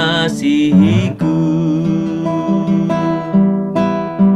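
A man singing a slow worship song over acoustic guitar strumming; his voice holds a wavering note that ends about a second in, leaving the guitar chords ringing on with a few fresh strums.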